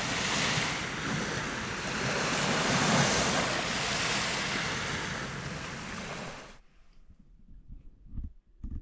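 Surf washing on a beach: a steady rush that swells and eases, cutting off abruptly about six and a half seconds in. After that, a quiet room with a few faint knocks near the end.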